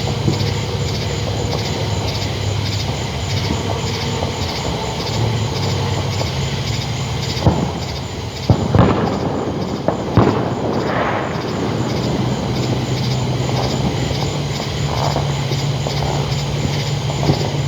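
Summer evening outdoor ambience: insects chirping in an even pulse of about three a second over a steady low rumble. A few sharp pops stand out around the middle and once near the end.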